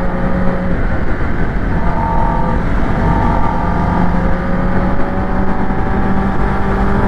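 Kawasaki Ninja ZX-10R's inline-four engine pulling steadily in second gear, its pitch rising a little in the second half as the bike accelerates, with a heavy rush of wind and road noise over the microphone.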